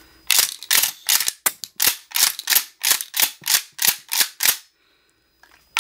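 Mossberg 590 Shockwave 12-gauge pump action racked back and forth repeatedly, a quick run of sharp metal clacks about three a second, with shells ejecting and dropping out. A short pause follows, then one more loud clack near the end.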